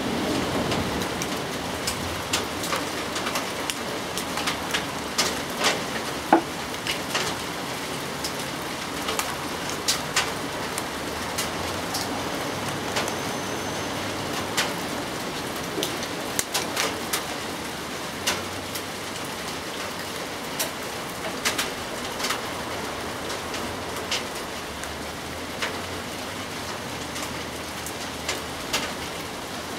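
Steady rain: an even hiss with sharp, irregular taps of single drops striking a surface close by.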